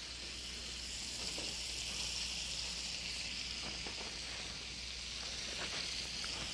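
Steaks sizzling steadily as they sauté in hot butter and oil in a frying pan, the fat hot enough that its foam has just subsided.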